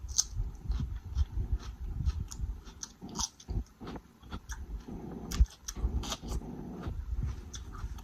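A person chewing and biting food close to the microphone: irregular wet smacks, mouth clicks and soft crunches.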